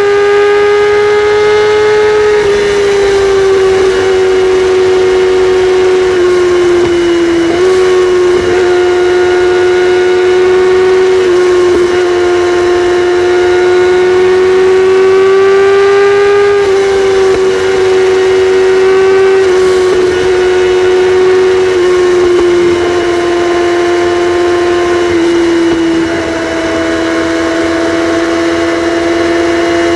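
Kawasaki ZX-6R inline-four with its catalytic converter deleted, running loud at high, nearly steady revs. Its pitch holds level with a few small dips and rises, and it drops slightly in loudness near the end.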